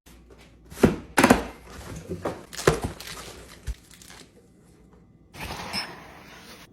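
Kitchen containers being handled: a series of knocks and clicks, then a rushing, hiss-like noise lasting about a second, about five seconds in.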